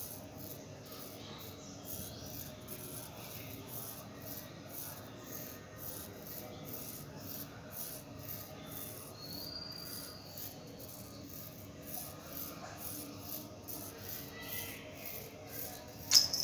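Steady high-pitched insect chirping, like a cricket, pulsing about three times a second, with a sharp click near the end.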